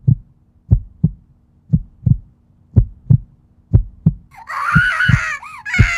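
Heartbeat sound effect: a steady lub-dub of paired low thumps, about one beat a second. About two-thirds of the way in, a high wavering shriek comes in over it.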